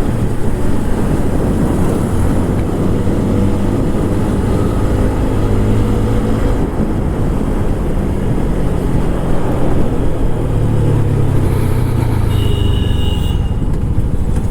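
TVS Apache RTR 160 4V's single-cylinder engine through its stock exhaust, running on the road, its pitch rising and falling as the bike accelerates and eases off.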